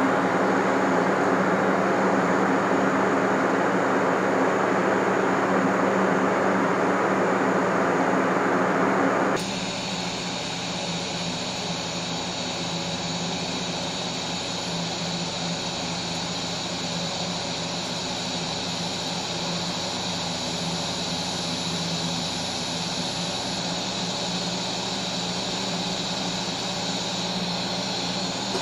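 Tweco Fabricator 141i inverter welder running during TIG welding: a steady hum and hiss with a few constant tones. About nine seconds in it drops a little in level and turns thinner and brighter all at once.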